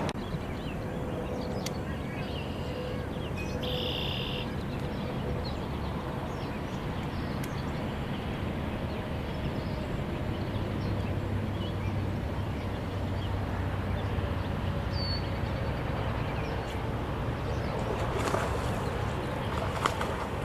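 Steady outdoor background noise with a low hum, and a few short bird calls, one about four seconds in and a brief chirp about fifteen seconds in.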